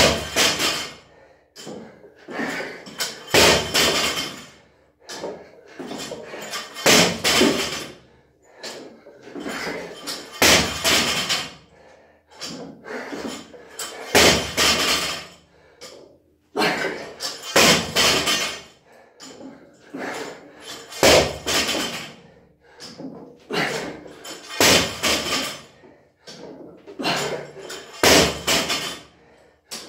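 A 50 kg barbell loaded with rubber bumper plates dropped onto a rubber gym mat over and over, a heavy thud about every three and a half seconds, each trailing off over about a second.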